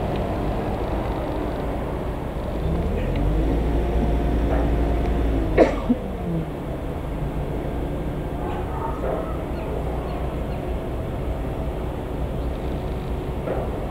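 A train passing slowly, a steady low rumble with engine tones that slide in pitch as it goes by, and a sharp knock a little before halfway.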